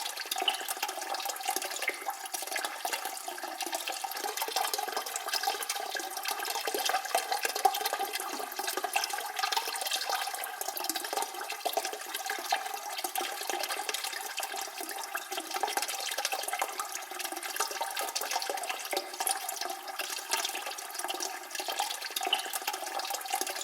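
Toilet cistern refilling: steady rush of water from the fill valve into the tank, with a faint whistling hum over it.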